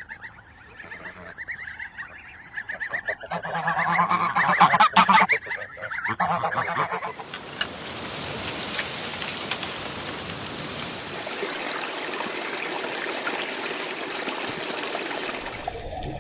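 Geese honking, a run of repeated calls; about halfway through the calls stop and a steady rushing noise takes over.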